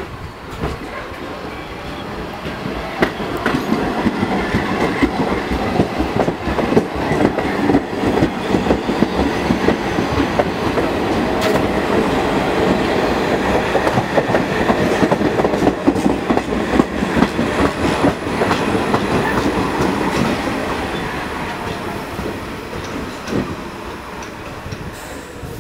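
Pullman Standard R46 subway train passing close and running down the station platform, its wheels clattering over the rail joints. It grows loud within the first few seconds, holds for about fifteen seconds, then fades as the train moves away.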